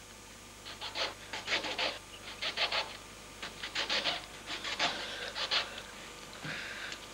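A kitchen knife sawing into a lemon: clusters of quick rasping strokes, then a softer rubbing near the end as a hand presses down on the cut lemon.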